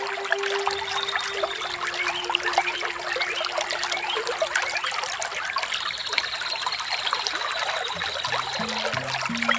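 Small waterfall splashing and trickling steadily, with faint bird chirps over it. Low, slow musical notes come in near the end.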